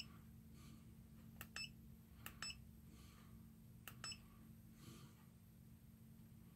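Faint button presses on a Bside A1 multimeter, three of them, each a pair of quick clicks with a short high beep from the meter.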